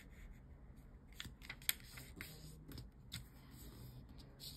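Sheet of two-colour origami paper being folded, pressed flat and opened by hand: faint scattered rustles and crisp ticks of the paper creasing.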